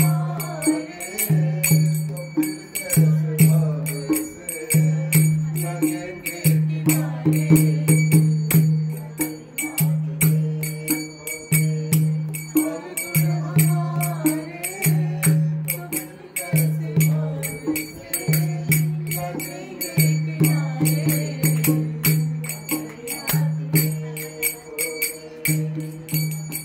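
Devotional bhajan singing with a jingling, tambourine-like percussion and a low beat repeating about every one and a half seconds.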